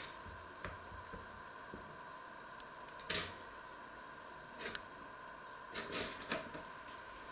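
Pop-up toaster being loaded: a slice of bread knocks into the slot about three seconds in, then the lever is pushed down with a short run of clicks about six seconds in. A faint steady high hum runs underneath.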